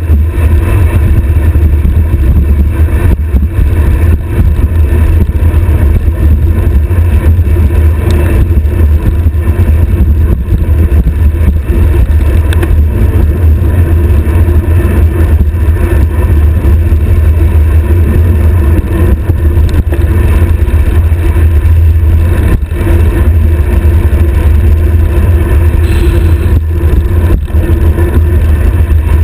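Loud, steady wind rush and low rumble on a stem-mounted GoPro's microphone as a road bike descends at high speed.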